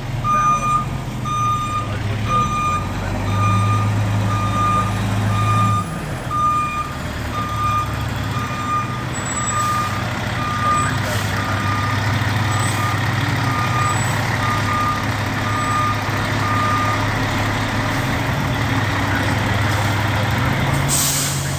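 Fire truck backing up: its reverse alarm beeps steadily, about one beep every 0.8 s, over the running diesel engine, and stops about three-quarters of the way through while the engine keeps running. A short hiss comes near the end.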